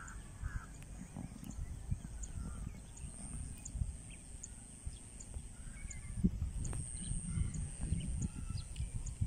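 Outdoor field sound: irregular low thuds and rumble of footsteps and wind on a handheld phone's microphone. Behind them run a faint, steady high-pitched whine and a few faint bird chirps.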